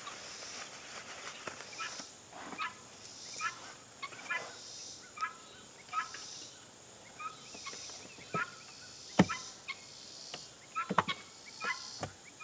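Fowl calling: a string of short calls, about one every half second to second. Sharp knocks come in between, the loudest about nine seconds in and a couple more near the end.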